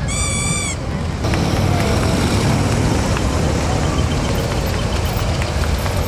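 A short police siren blip at the very start, then a steady low rumble of police motorcycle engines as a column of bikes rides past.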